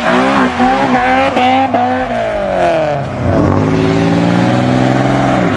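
Car engine revving hard while the car spins doughnuts, with tyre squeal underneath. For about two seconds the revs jump up and down in quick bursts, then fall away and climb steadily again, until the sound cuts off suddenly near the end.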